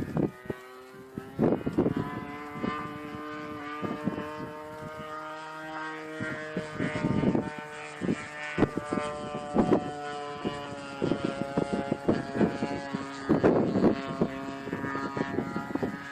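Christen Eagle aerobatic biplane in flight: a steady pitched drone that slowly drifts in pitch, with rumbling gusts of wind buffeting the microphone every second or two.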